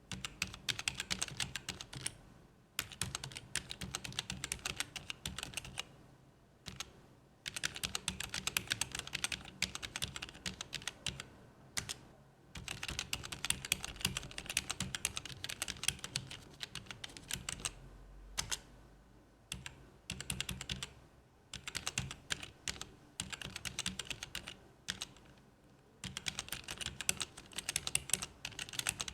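Typing on a gaming keyboard: fast runs of key clicks in bursts of a few seconds, broken by short pauses.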